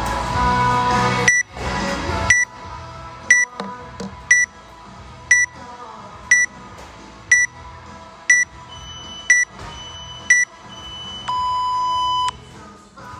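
Workout countdown timer beeping once a second: about ten short high beeps, then one long, lower beep as the count reaches zero to signal the start, over background music.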